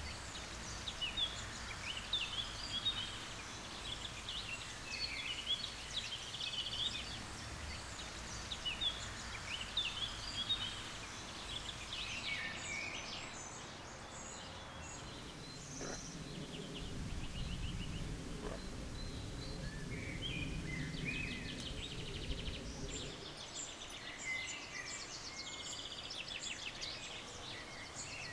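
Small songbirds chirping and trilling over a steady outdoor hush. About halfway through a low rumble comes in and cuts off a few seconds before the end.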